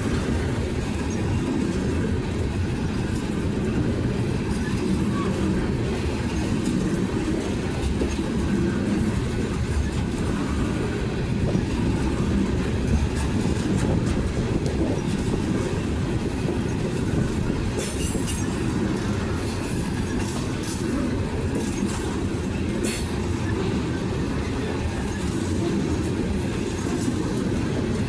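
BNSF freight train's cars rolling past: a steady low rumble of steel wheels on the rails, with a cluster of sharp high clicks about two-thirds of the way through.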